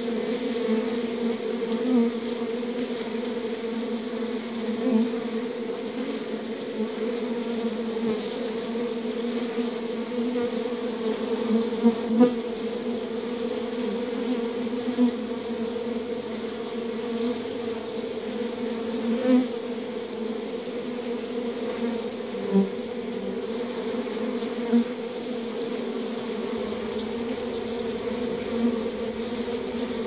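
A honeybee colony buzzing in a steady, even hum around an opened wild nest, with brief louder swells now and then.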